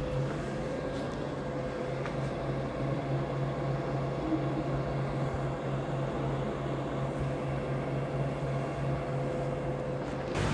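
Steady low machine hum with a constant tone, running without a break.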